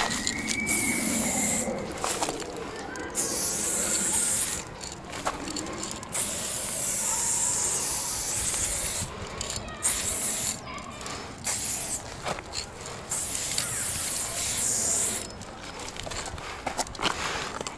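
Garden pressure sprayer spraying paint, hissing in repeated bursts of one to three seconds with short pauses between, about eight times.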